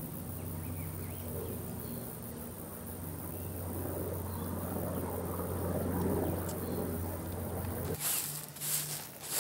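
A steady low hum with faint outdoor background. About eight seconds in it gives way to a plastic push broom's bristles scraping across loose gravel in a few quick, close strokes.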